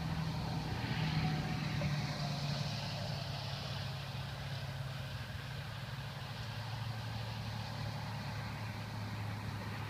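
An engine idling steadily, a low hum whose pitch drops slightly about six seconds in.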